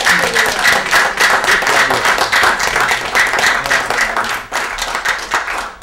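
Applause from a small group of people: dense, fast hand-clapping that dies away near the end.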